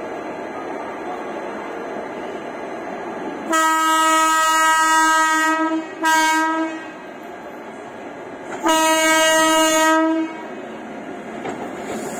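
Indian Railways electric locomotive horn sounding three blasts on one steady pitch: a long one, a short one, then another long one, over the steady running rumble of the train.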